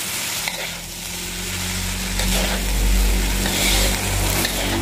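Fried rice sizzling in a metal wok as a spatula scrapes and tosses it against the pan. A low steady hum comes in underneath about half a second in.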